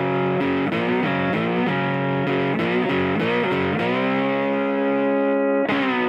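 Rock intro music on distorted electric guitar: quick changing chords, then one chord held for about two seconds before a new one is struck near the end.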